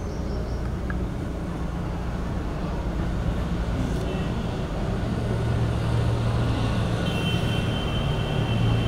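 Steady low background rumble with a hum, like distant traffic or running machinery; a thin high steady tone joins it about seven seconds in.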